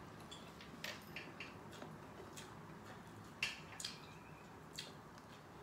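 A person eating: a string of faint, short clicks and smacks of chewing and cutlery, the loudest about three and a half seconds in.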